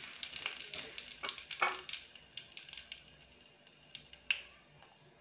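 Mustard seeds, curry leaves and dried red chillies spluttering in hot oil in a clay pot: a faint sizzle with scattered sharp pops that thin out in the second half.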